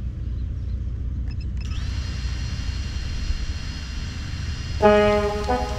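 FPV freestyle quadcopter armed on the ground, its brushless motors spinning at idle with a steady high whine over low wind rumble on the microphone. Music starts about five seconds in.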